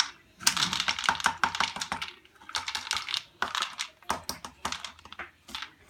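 Dry dog kibble rattling and clicking as a scoop is dug into the food bag and levelled off, in several spells of quick small clicks.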